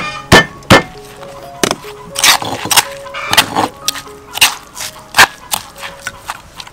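Stone pestle knocking in a stone mortar as it pounds a wet paste with fried dried shrimp: sharp irregular knocks, roughly one to two a second. Background music with held notes plays under it.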